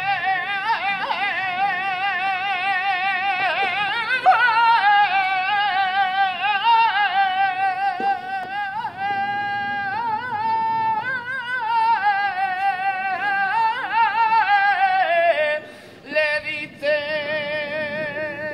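Saeta sung by a solo unaccompanied male flamenco voice, in long melismatic phrases with wavering, ornamented pitch. A note is held steady near the middle; the phrase then falls and breaks off briefly for a breath, and the singing resumes lower.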